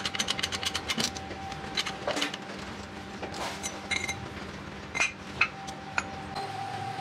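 Rapid run of small clicks in the first second, then scattered metallic clicks and clinks, a few ringing briefly, as steel transformer core parts are pressed and handled. A faint steady tone sits under it.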